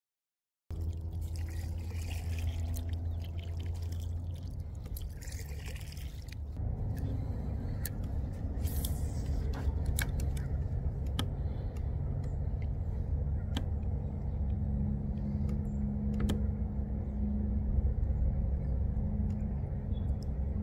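Water sloshing around a kayak with a low, uneven rumble, while a spinning reel is cranked and a few sharp clicks sound. It begins after about a second of silence.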